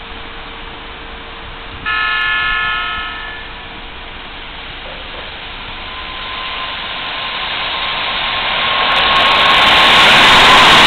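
Keikyu 600-series limited express train giving a short horn blast about two seconds in. Its running noise then grows steadily louder as it approaches: a rising rush of wheels with a steady whine over it.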